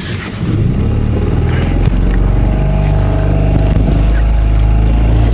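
Boat's outboard motor running, growing louder about two seconds in and then holding a steady, even pitch.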